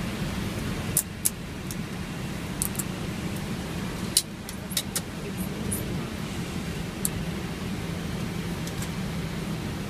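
Steady low cockpit rumble of an Airbus A319 rolling along the runway after landing. Over it come sharp switch clicks from the flight-deck panel: several between about one and five seconds in, and one more near seven seconds.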